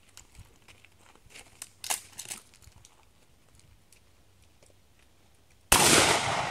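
A few faint clicks, then about five and a half seconds in a single loud gunshot from a long gun, with a long echoing tail.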